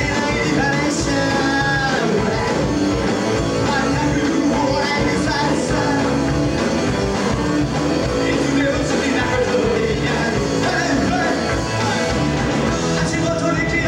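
Rock band playing live, with electric guitars and drums.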